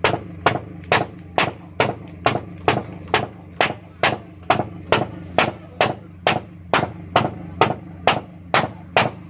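A steady beat of sharp hits, a little over two a second, over a low steady hum.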